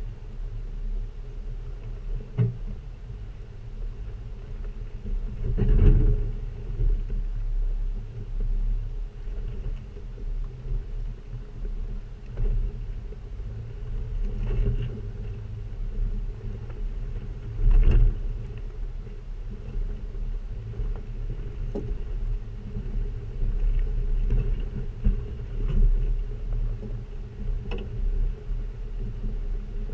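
Stock 2006 Jeep Wrangler TJ driving over rutted, dried mud, heard from a camera mounted by its front wheel: a steady low rumble broken by knocks as the tyres and suspension go over ruts, with bigger thumps about six seconds and eighteen seconds in.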